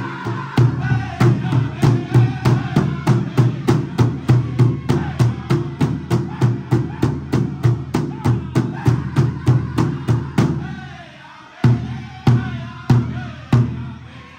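Powwow big drum struck in unison by a group of drummers in a fast, even beat of about three strikes a second, with men singing over it. The beat stops about ten and a half seconds in, and four single hard strikes follow near the end.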